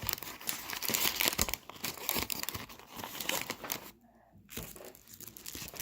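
Plastic bags being handled and opened, crinkling and crackling in irregular bursts, with a short break about four seconds in.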